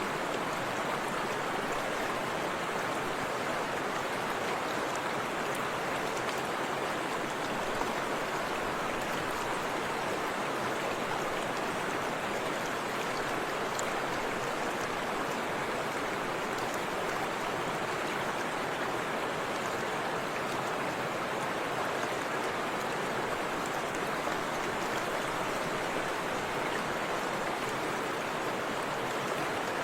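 Forest river rushing over a small waterfall: a steady, even rush of flowing water.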